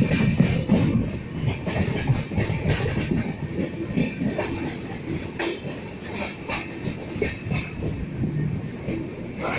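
Moving passenger train: wheels rumbling and clattering over the rail joints, with irregular knocks and clicks over a steady rumble.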